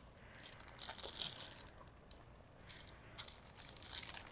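Faint crinkling of a plastic bag of cooked rice, squeezed and worked by hand as the rice is pushed out of it, in two short spells.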